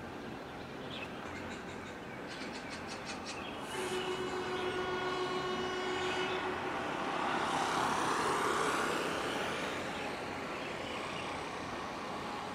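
A horn sounds one long steady blast of about three seconds, a little under four seconds in. It plays over steady background noise that swells and fades around the middle.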